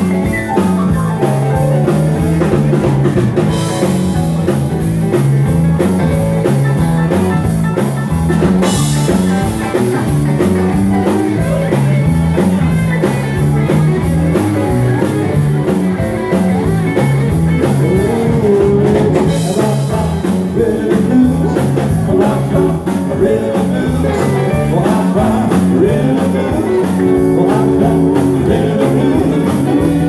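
Live band playing dance music on electric guitars, keyboard and drum kit, over a steady, repeating bass line.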